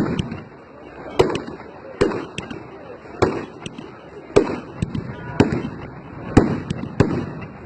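Fireworks exploding in a display, with sharp bangs coming about once a second, each followed by a brief rumbling tail.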